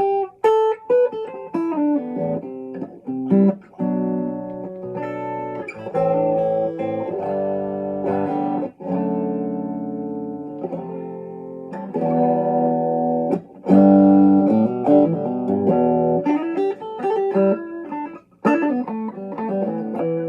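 Electric guitar, an Epiphone Les Paul Jr. with a Seymour Duncan JB humbucker, played through a small practice amp: quick picked notes and riffs mixed with ringing chords, with short breaks between phrases.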